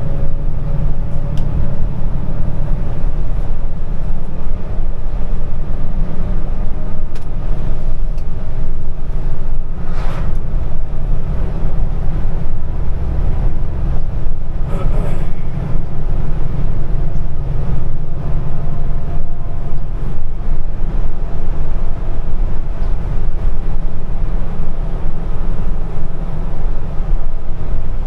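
Heavy truck driving: the diesel engine and road noise make a steady low rumble, with two brief higher noises about ten and fifteen seconds in.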